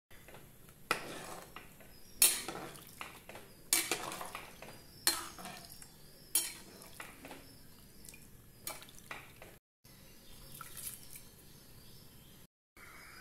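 Perforated steel ladle stirring a watery rice, dal and vegetable mix in an aluminium pressure cooker, knocking against the pot with a sharp metallic clink every second or two. The loudest clink comes about two seconds in.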